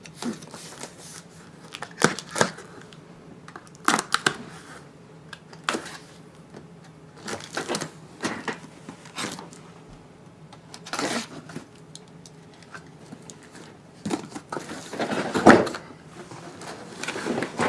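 Cardboard box being opened and handled: irregular scrapes, rustles and knocks, with the loudest scrape and thump about fifteen seconds in.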